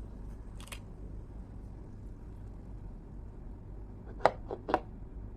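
Handling noise: one light click, then a quick run of three sharp clicks about four seconds in, over a low steady hum.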